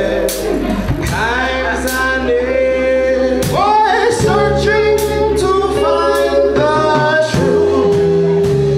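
Live reggae band: a male vocalist sings held, melodic notes over a steady bass line, guitar and drums, with regular cymbal hits.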